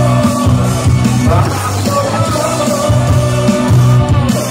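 Loud live Greek pop music: the band plays an instrumental stretch with a strong, steady bass line.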